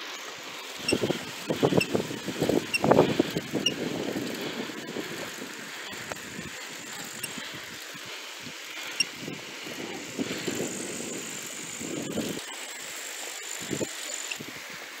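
Wind buffeting the microphone of a moving bicycle, over the steady hiss of tyres rolling on asphalt, with rumbling gusts in the first few seconds and again about ten to twelve seconds in.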